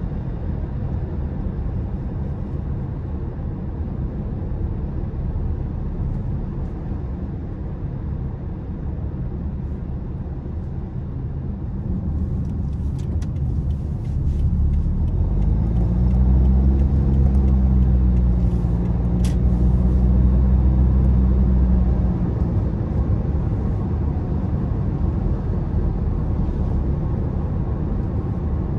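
Steady low road and tyre rumble inside a moving car's cabin. Around the middle an engine drone rises in pitch, holds louder for several seconds, then eases off. A few faint clicks come and go.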